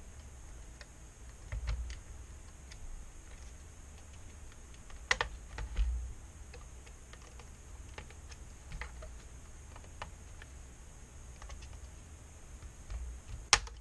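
Sparse light clicks and taps from a small flathead screwdriver and fingers working at the thin metal frame of an LCD panel to pry it loose, with a few sharper clicks, the sharpest near the end.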